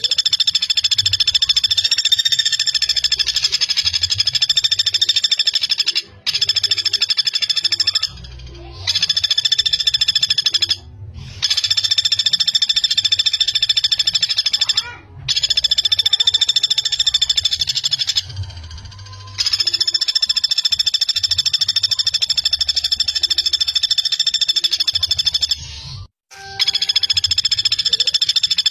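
Common flameback woodpecker giving long, fast, tightly packed rattling trills, one after another. Each trill lasts about two to six seconds, with short breaks between them.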